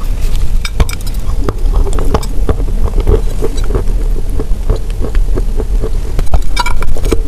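Close-miked biting and chewing of a block of wet chalk coated in crushed cookies and cream paste: dense, irregular crunches and crackles over a steady low hum.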